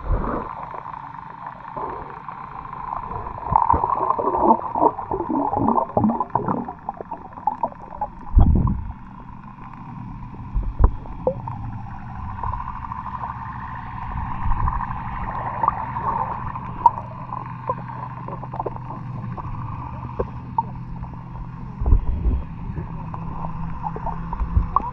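Water heard underwater: gurgling and bubbling, busiest in the first few seconds, with a few sharp knocks and a steady low hum underneath from about a third of the way in.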